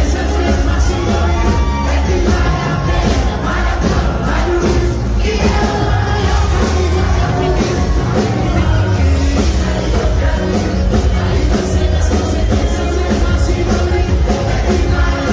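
Live sertanejo music: a male singer on vocals over a band with accordion, guitars and drums, with crowd noise underneath.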